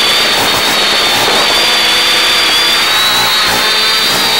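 X550AIOP quadcopter's electric motors and propellers whining in flight, several high tones that drift up and down together over a steady hiss, as carried on the FPV downlink.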